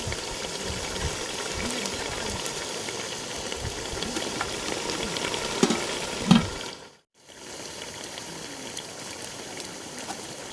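Duck curry frying in a pot, a steady sizzling hiss with a few small crackles. About seven seconds in the sound drops out briefly and comes back a little quieter.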